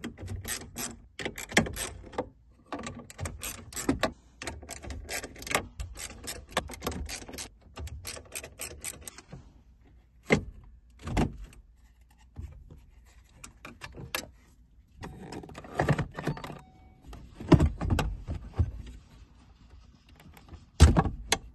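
Clicks and rattles of plastic and metal as hands work the factory CD player and radio unit of a 2011 Ford Mustang loose and slide it out of the dash. The clicking is dense for the first several seconds, then sparser, with a few heavier thumps near the end.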